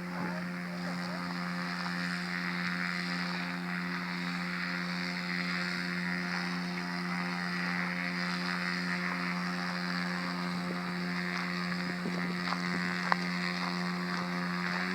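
Small propeller aircraft engine running steadily at low power, a constant low drone with a slight throb. A few faint clicks, with one sharper click about thirteen seconds in.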